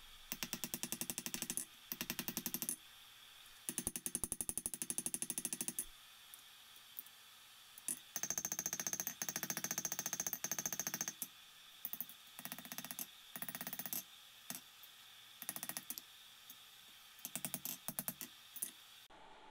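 Hand file rasping on forged steel in repeated push strokes, each lasting one to two seconds, with short pauses between them.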